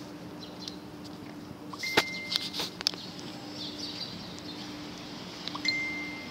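Metal gate door clacking, with a sharp click about two seconds in and a few lighter clicks after it, over a steady low hum. A short high beep sounds twice: with the first click, and again near the end.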